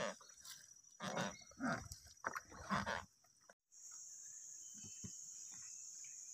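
A few short grunting sounds in the first three seconds, then after a sudden cut a steady high-pitched insect drone with a few faint taps.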